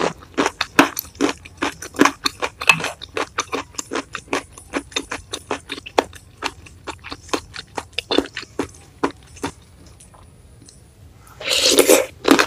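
Close-miked wet chewing: a quick run of sharp mouth clicks and smacks, then a short lull, then a loud slurp of noodles about a second before the end.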